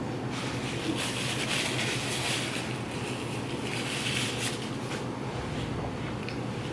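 Close-miked chewing and crunching of food, a crackly rustle that eases off about five seconds in, over a steady low electrical hum.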